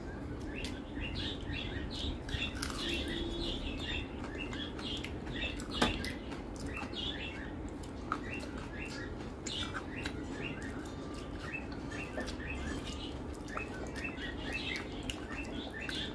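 Close-miked eating sounds: wet chewing and lip smacks, with fingers squishing rice and dal on a metal plate, as many small squeaky clicks. A single sharp click stands out about six seconds in.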